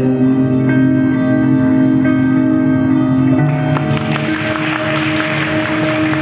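A song playing for the performance, with long held notes. About four seconds in, a bright hissing wash of noise joins over the music.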